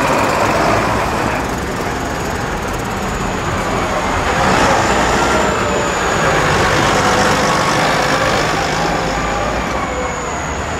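Diesel engines of large farm tractors driving past one after another, the sound swelling as each comes close.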